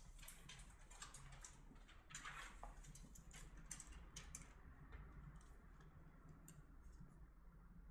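Sheets of paper being handled and slid across the flat metal bed of a screen-printing press: faint rustles and light clicks, thickest in the first half, with a steady low hum underneath.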